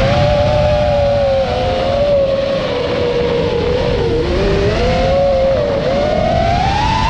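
Motors of an iFlight Nazgul5 FPV quadcopter on a 6S battery whining, the pitch rising and falling with the throttle: a dip about four seconds in and a climb near the end. A low wind rumble sits underneath.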